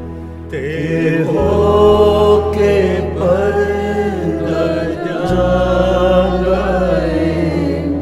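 Devotional singing of a Punjabi Lenten hymn over sustained low instrumental accompaniment whose bass note changes a few times. The voice enters about half a second in.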